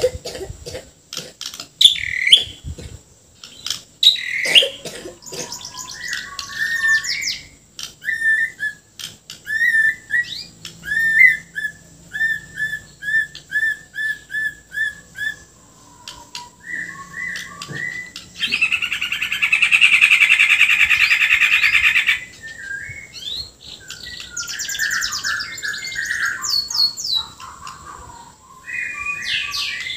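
White-rumped shama (Bornean murai batu) in full song: varied whistled phrases and fast trills, a run of repeated notes at about two a second, and a loud harsh rasping stretch of about three seconds past the middle.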